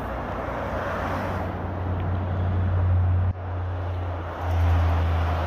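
Highway traffic: a steady low rumble of vehicles with the hiss of tyres on the snowy road. It drops off abruptly about three seconds in and swells again a second later.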